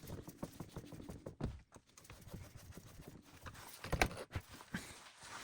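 Scattered light clicks and knocks of plastic parts being handled as a Roomba i7's wheel assembly is fitted back into the robot vacuum's chassis, with a few sharper clicks about four seconds in.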